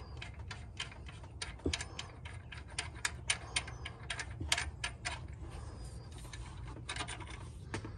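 Ratchet wrench clicking in short, irregular runs of a few clicks a second as a 15 mm alternator mounting bolt is loosened and backed out.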